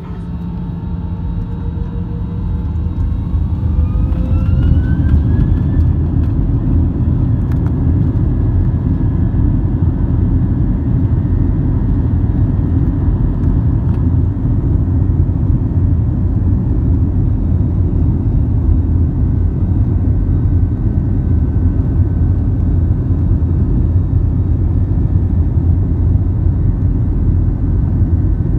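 Airbus A321's jet engines spooling up, heard from inside the cabin: a whine rising in pitch over the first five or six seconds, then a loud, steady low rumble as the plane runs at high thrust, typical of the takeoff roll.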